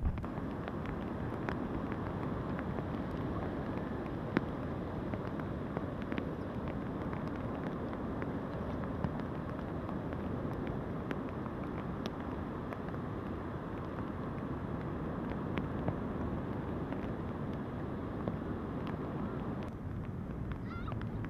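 Steady wind and surf noise, with wind buffeting the microphone and scattered faint ticks through it; the sound shifts slightly near the end.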